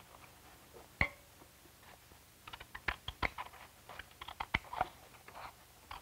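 Scissors cutting paper: one sharp click about a second in, then a quick run of crisp snips over the next three seconds.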